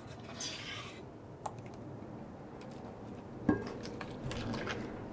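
A small metal bread pan lifted out of a stainless steel stock pot by crinkled aluminium-foil handles and set down on a pot holder: light clicking and rustling, with a sharper knock about three and a half seconds in.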